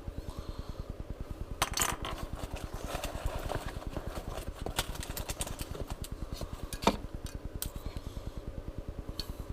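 Fishing tackle being handled in a tackle box: scattered sharp clicks and rattles, the loudest about two seconds in and near seven seconds. Under it runs a steady low pulsing of about ten beats a second.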